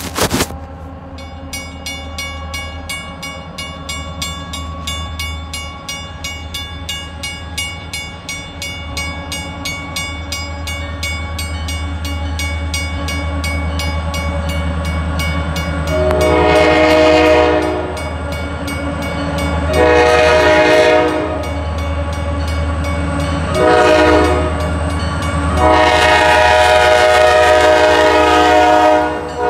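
A grade-crossing bell dings steadily while a diesel freight train's rumble grows louder as it approaches. From about halfway through, the lead locomotive's multi-chime air horn sounds the crossing signal: two long blasts, a short one, and a final long blast that is still going as the locomotive enters the crossing.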